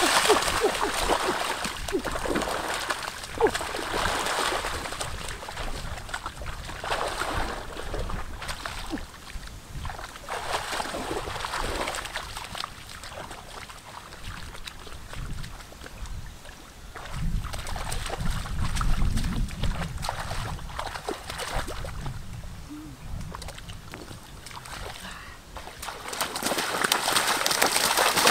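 Water splashing and sloshing on and off in shallow water, with scattered knocks and crackles.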